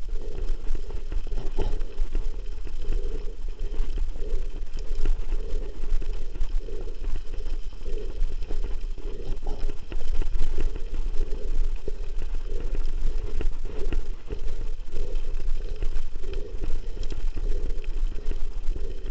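Mountain bike riding fast down a loose gravel track: tyres crunching over stones and the bike rattling, with wind buffeting the camera's microphone as a steady low rumble.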